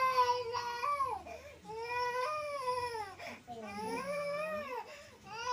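Toddler crying in three long, high-pitched wails with short breaths between them.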